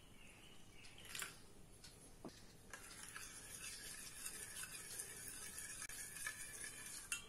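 Faint trickle of warm water poured into a small steel bowl of instant yeast. From a little under three seconds in, a steel spoon stirs and scrapes steadily round the bowl with small ticks, mixing the yeast into the water.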